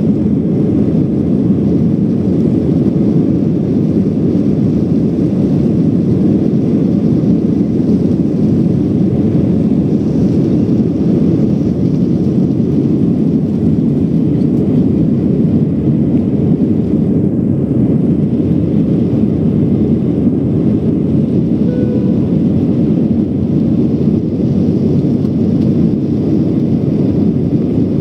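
Cabin noise of an Airbus A320-family jet airliner during its takeoff run and climb-out: the engines at takeoff thrust and the rumble of the run, a loud, steady, deep roar heard from a seat over the wing.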